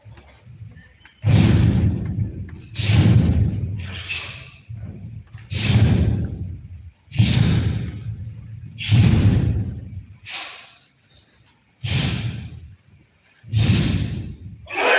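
A taekwondo team performing a form in unison on a stage: loud thuds of feet stamping together with the snap of moves, repeated about every one and a half seconds, each dying away slowly.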